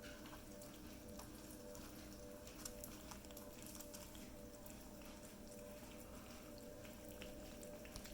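Near silence: a faint steady hum with scattered soft ticks.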